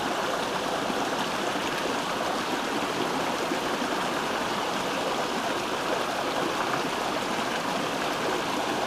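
Steady rush of a small rocky mountain stream running over stones in a shallow riffle.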